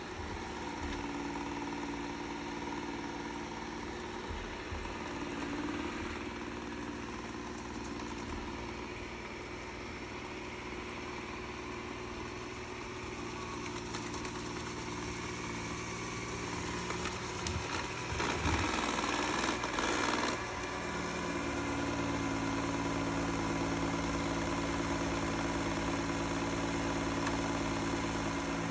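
Eufy RoboVac L35 Hybrid+ robot vacuum running, with a steady whirr from its suction fan and brushes. About two-thirds of the way through there is a louder, rougher stretch lasting a couple of seconds. After that the motor settles into a different, steadier hum.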